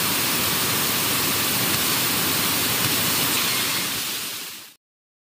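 Steady hiss of TV static, a white-noise effect with no tone in it, fading out near the end into dead silence.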